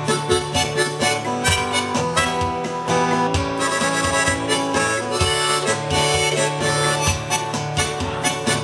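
Harmonica playing an instrumental melody over steadily strummed acoustic guitar, a solo performer with a neck-rack harmonica and guitar.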